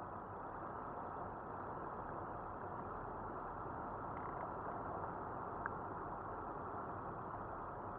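Steady engine and road noise inside a moving car's cabin, with one short sharp click about two-thirds of the way through.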